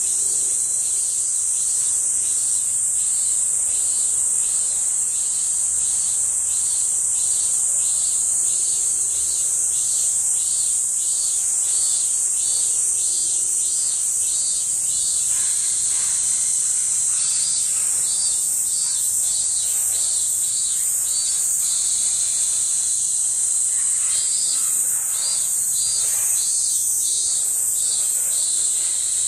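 Insects chirring: a steady high-pitched drone with a pulsing call of about two beats a second over it, which grows stronger in the second half.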